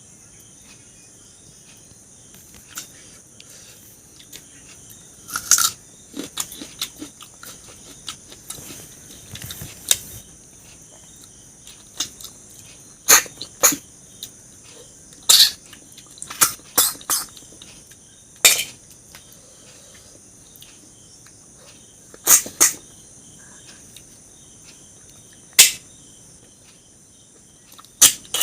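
Eating sounds from a meal of river clams: a scattering of sharp clicks and smacks, about a dozen, from clam shells and chewing. Under them runs a steady, high chirring of crickets.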